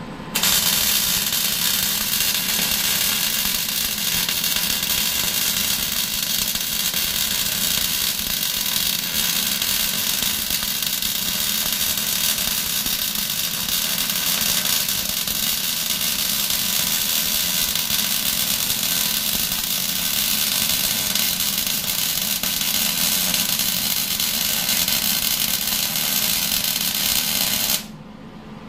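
MIG welder running one long continuous weld on a steel backhoe bucket: a steady, loud sizzling hiss that starts about half a second in and cuts off sharply about a second before the end.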